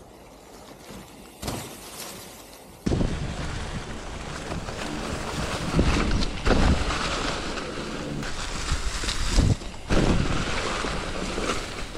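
Mountain bike riding along a trail covered in dry fallen leaves: tyres rushing through the leaves with a dense rumbling noise that starts abruptly about three seconds in after a quieter start, and several louder thumps from bumps in the trail.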